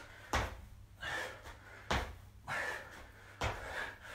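Jump squats: sneakered feet landing on a concrete floor three times, about a second and a half apart, each thud followed by a hard breath from the exerciser.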